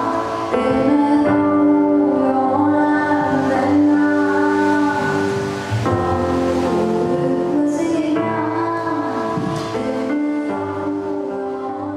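Music: a woman singing long held notes over sustained keyboard chords that shift a few times, fading a little near the end.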